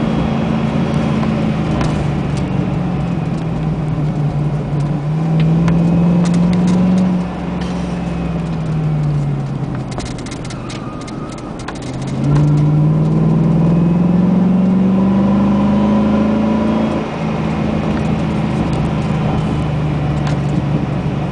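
Chevrolet Z71 pickup truck's engine, heard from inside the cab over steady tyre and road noise. Its pitch rises as it accelerates about five seconds in, falls away as it slows through the curves, then climbs again from about twelve seconds until it eases off near seventeen seconds.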